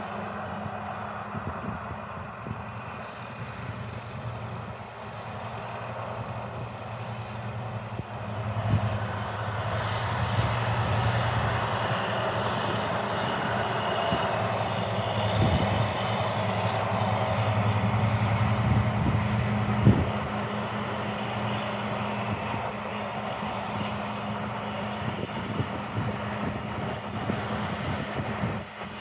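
A vehicle engine runs steadily with a low hum, growing louder about a third of the way in and easing back after a sharp knock about two-thirds through, with a few lighter knocks along the way.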